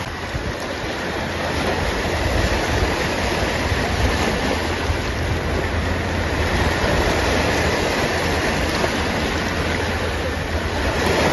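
Small waves washing onto a pebble and sand shore: a steady rushing noise with a low rumble underneath.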